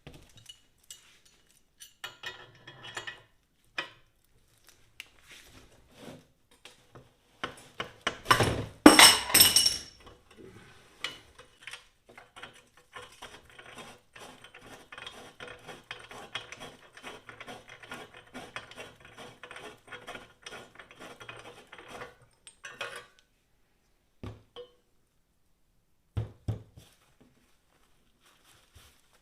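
Steel tools clinking and clicking against a bicycle frame's bottom bracket shell as a seized bottom bracket is worked out. About eight seconds in comes a loud clatter of metal on metal, then a long run of fast, light ticking and a few separate knocks.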